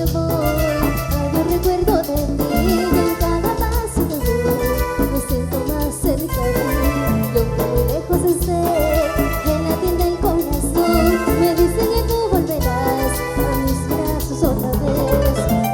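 Cumbia band playing an instrumental passage: a wavering melodic lead line over a steady beat and bass.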